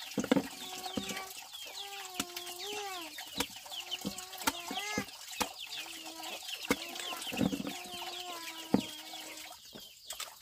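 Chickens clucking, with many quick high chirps among the calls, and the sharp clicks of a cleaver slicing pieces off a green pumpkin.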